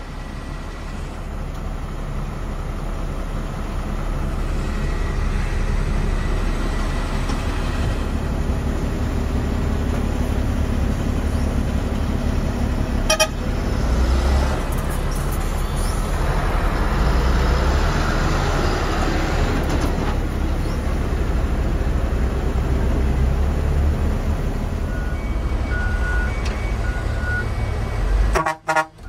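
Diesel dump truck engine running and pulling away, building in loudness over the first few seconds, with a short horn toot about halfway through and another near the end.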